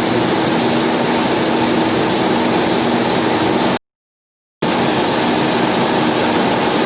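Steady loud rushing noise, like a motor or fan close to the microphone, which cuts out to total silence for under a second about four seconds in.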